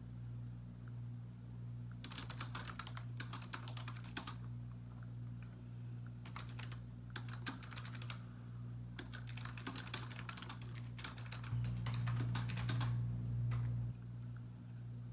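Typing on a computer keyboard in several short runs of rapid keystrokes with pauses between, over a steady low hum that swells for a couple of seconds near the end.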